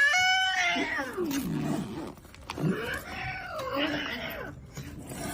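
A cat yowling: a loud drawn-out call that rises and then falls in pitch, then a second wavering call about three seconds in.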